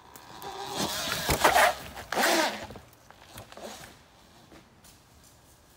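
Talaria XXX electric dirt bike passing close on dirt, a rasping rush of knobby tyres and drivetrain with a faint motor whine. It peaks twice, about one and a half and two and a half seconds in, then fades as it rides away.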